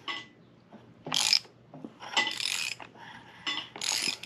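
A socket ratchet on the crankshaft pulley bolt clicks in about four short bursts as a Honda H23 engine is turned over by hand, checking the timing belt and marks after setting the tensioner.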